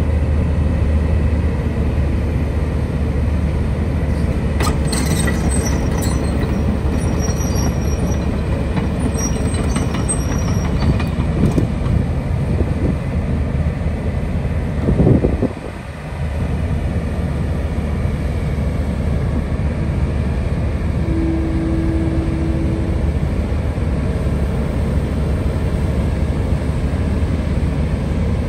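Kobelco SK260LC crawler excavator running under load while digging soil, its diesel engine a steady low drone. A few light clinks in the first third, a louder surge about halfway followed by a brief dip, and a short steady whine about two-thirds of the way through.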